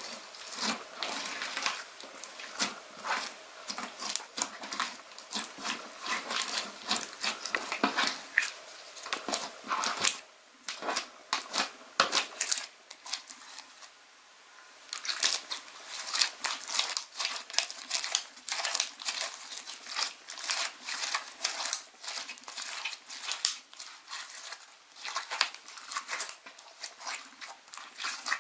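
Slime being squished and pressed by hand: a dense, irregular run of sticky clicks and crackling pops, with a short lull about halfway through.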